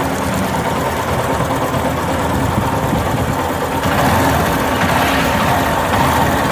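Yamaha Fazer 250's single-cylinder engine idling hot while its cam chain tensioner is pushed counterclockwise with a screwdriver, which makes the tec-tec ticking stop. This shows the noise comes from a faulty cam chain tensioner.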